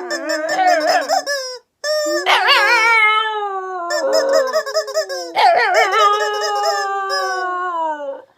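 Black Shiba Inu howling along with a squeaky crying toy: a run of long, wavering, high howls broken by short gaps, about four in all, with the toy's shrill squeaking above them.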